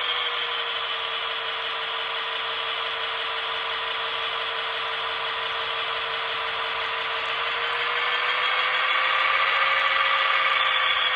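HO-scale BLI SD40-2's Paragon 2 sound decoder playing a diesel locomotive engine through the model's small speaker, along with the whir of the model's motor and gears as it creeps along at a low speed step. The sound is steady and swells a little near the end.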